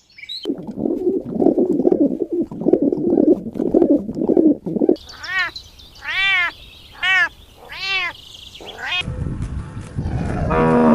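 Kittens meowing: four short high meows about a second apart, each rising then falling in pitch. They follow a few seconds of low rough rumbling, and near the end comes a lower, longer cat call.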